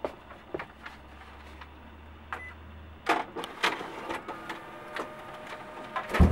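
Office photocopier being worked by hand: clicks of the paper, lid and control-panel buttons, a short beep about two and a half seconds in, and the machine running with a low hum and then a faint whine. A low thump comes just before the end.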